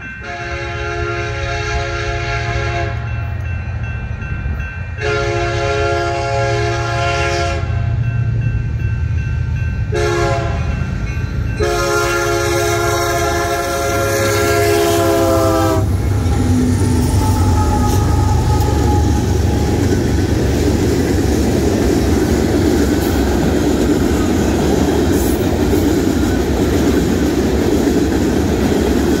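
Freight train's locomotive air horn sounding the grade-crossing signal: two long blasts, a short one and a final long one. The train then rolls past over the crossing with a loud, steady rumble and the clatter of tank-car wheels on the rails.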